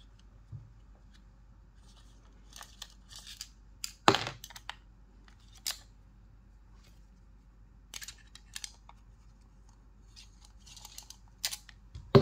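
Hex key working the small screws of a metal quad rail handguard: scattered light metal clicks and short scrapes, with one sharper click about four seconds in.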